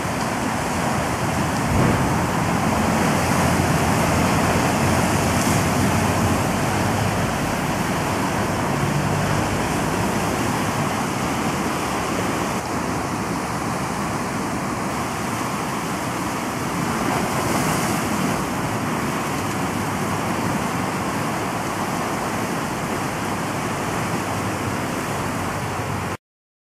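Ocean surf washing against shoreline rocks, with wind on the microphone, a steady rushing noise that cuts off suddenly near the end.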